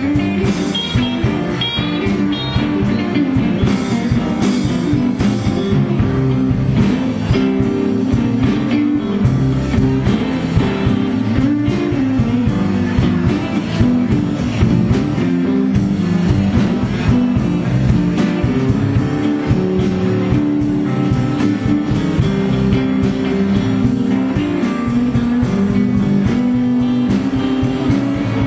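Live blues band playing: electric guitars, bass, keyboards and drum kit, with a steady drum beat under a walking bass line.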